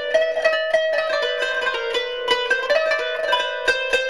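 Background instrumental music: a plucked string instrument playing a quick run of notes over a steady held drone.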